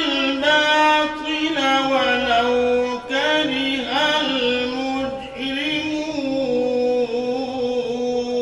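A man's melodic Quran recitation (qirat), the voice drawn out in long sung phrases with ornamented turns and steady held notes. Brief breaths break it about three and five seconds in, and the last phrase is held on a long note.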